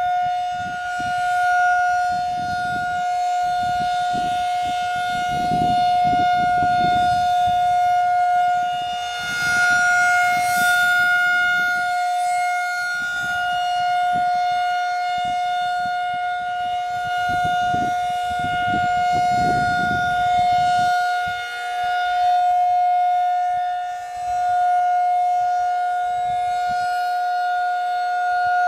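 Federal Signal 2001-SRN outdoor warning siren sounding one steady tone at full speed during a test. Its loudness swells and fades every several seconds as the rotating horn turns.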